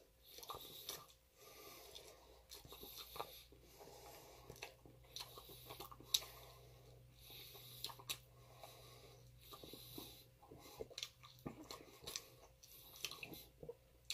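Close-up chewing and biting on a bone-in chicken wing: wet mouth sounds with irregular smacks and crunches, the sharpest about six seconds in.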